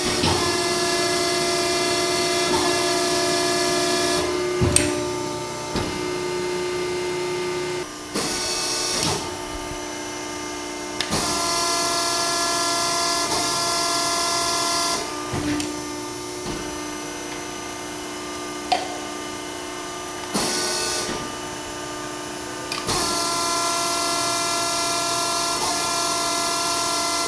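A Wysong THS-100-72 100-ton CNC hydraulic press brake running: its hydraulic pump gives a steady hum and whine. The whine swells several times into louder spells of a few seconds with a high hiss as the ram is cycled, with an occasional sharp clunk in between.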